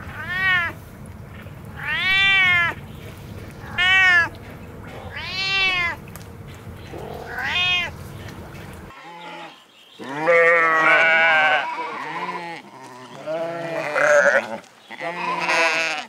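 A cat meowing five times, short calls that rise and fall. After about nine seconds it gives way to sheep bleating repeatedly in wavering, quavering calls.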